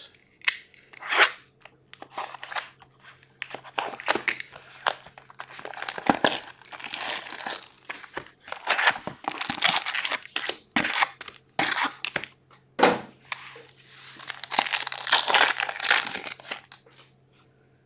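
Plastic wrap and foil card packs crinkling and tearing as a sealed box of hockey cards is opened and its packs are torn open by hand, in an irregular run of crackles and rips.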